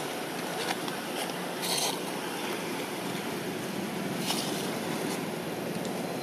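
Steady rushing outdoor background noise, with two short rustles of dry leaves about two and four seconds in.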